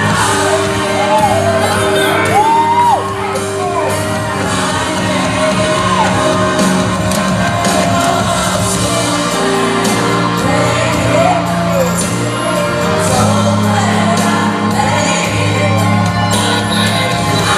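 Live gospel music: the band plays held chords while a voice sings wordless gliding runs over them, with shouts and whoops from the congregation.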